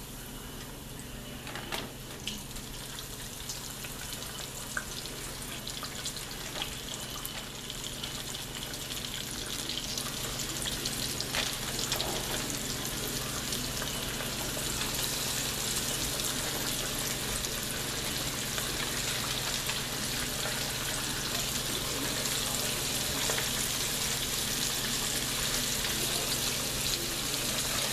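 Breaded chicken pieces deep-frying in hot oil in a large pot: a steady sizzle that grows louder over roughly the first ten seconds as more pieces are lowered in, then holds. A few sharp clicks stand out early on the sizzle.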